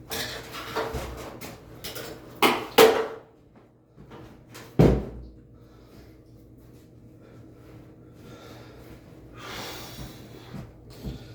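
A series of sharp knocks and clunks from something being handled, with three loud strikes between about two and a half and five seconds in. A softer rustle follows near the end, over a faint steady hum.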